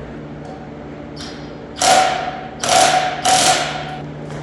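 Impact wrench run in three short bursts of about half a second each, on the alternator's pulley nut during a pulley swap. A faint steady hum lies underneath.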